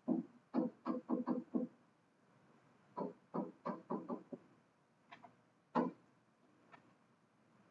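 A pen knocking and tapping on a writing board as equations are written: a quick run of about five short knocks, then another cluster of about six a couple of seconds later, then a few single taps.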